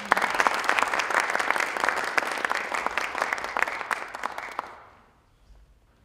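Audience applauding in a large theatre. The clapping thins out and dies away about five seconds in.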